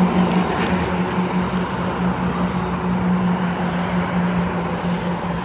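Road traffic passing close by: a container truck going past and away, then a car, with tyre and engine noise over a steady low hum.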